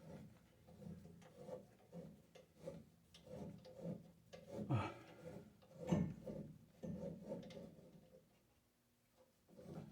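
Copper water pipe being cut by hand: rhythmic rubbing and ticking strokes, about one and a half a second, then they stop.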